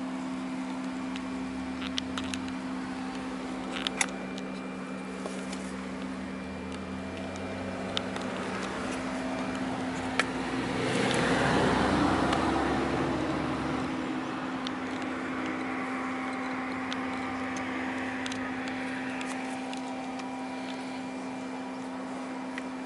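A machine's steady low hum, with scattered light clicks and taps. About ten seconds in, a louder rush of noise swells up and fades again over about three seconds.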